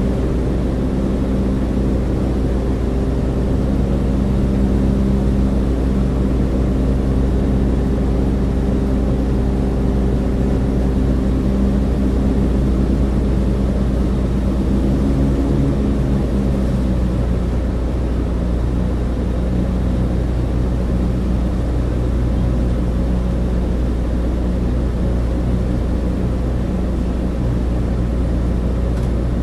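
Cabin drone of a Douglas DC-3's twin piston engines and propellers in cruise: a steady low hum with a pitched throb over a rush of air noise. The throb's pitch shifts slightly about halfway through.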